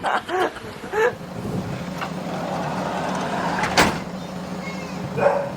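Steady drone of a moving road vehicle heard from inside, with one sharp click close to four seconds in and brief bits of voice at the start and near the end.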